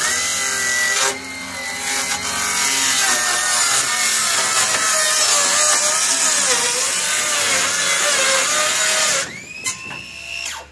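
Circular saw cutting through a plywood sheet along a clamp-on straight-edge guide. The motor starts abruptly and its whine dips slightly under load during the cut. About nine seconds in the blade clears the board, the whine rises briefly, and the saw is switched off near the end.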